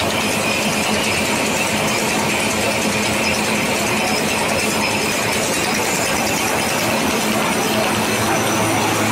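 LDPE foam extrusion machine running: a steady, dense mechanical rattle over a low hum.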